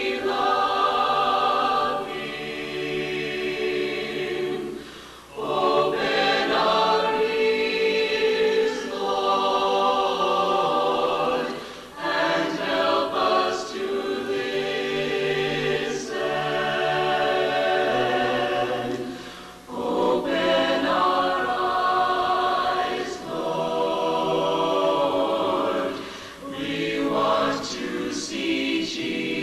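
Mixed choir singing a hymn a cappella in long phrases, each about six to seven seconds, with brief breaks for breath between them.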